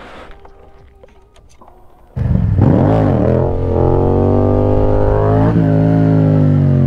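Faint for about two seconds, then a motorcycle engine cuts in loud under acceleration. Its revs dip and recover soon after, then climb steadily, with a brief dip again near the end.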